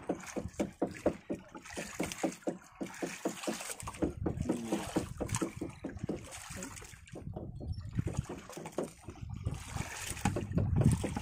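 Small fishing boat's engine running with a steady, rapid thumping of about five beats a second, with wind on the microphone.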